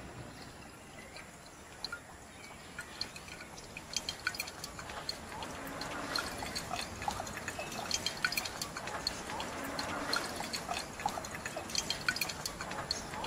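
Water dripping: scattered single drops at first, coming thicker and splashing a few seconds in.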